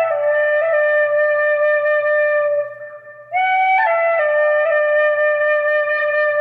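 A slow, soft melody on an Irish flute. A few notes step down into a long held note, there is a short breath-like break about halfway, and then a quick rising phrase settles into another long held note.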